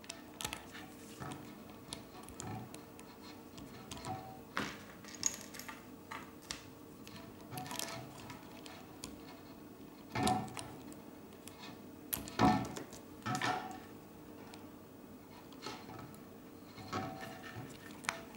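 Hard plastic Lego Technic parts clicking and knocking together as they are handled and refitted: irregular single clicks, with a few louder clacks a little past halfway, over a faint steady hum.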